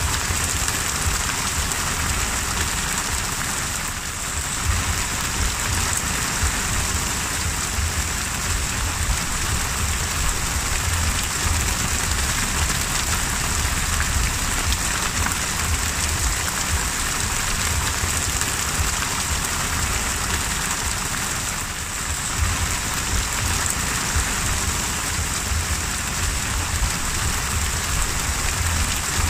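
Heavy rain falling on open sea water, a steady dense hiss of drops striking the surface, dipping briefly twice in level, about four seconds in and again about two-thirds of the way through.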